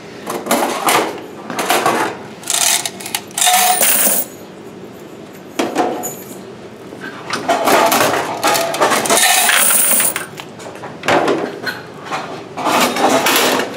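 Quarters being poured out of laundromat washers' coin boxes into a plastic bucket, in a run of about eight separate pours with short pauses between them, the longest near the middle.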